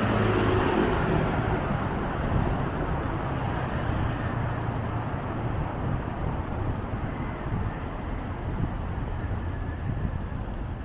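Steady road traffic noise from passing cars. A vehicle's engine hum is louder in the first second or so, then fades as it goes by.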